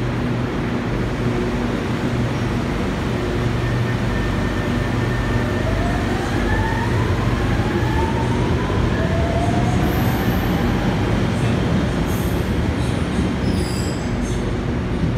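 Shanghai Metro Line 1 type 01A05 train pulling out of the station. A steady low hum runs throughout, and several whining tones climb in pitch from about six to eleven seconds in as the traction motors speed up.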